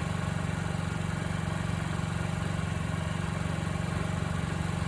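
2020 Honda Ruckus scooter's 49cc single-cylinder four-stroke engine idling steadily, freshly restarted after an oil change and air-filter service.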